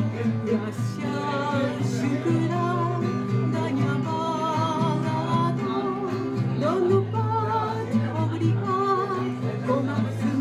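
A woman singing to her own acoustic guitar, her held notes wavering with vibrato.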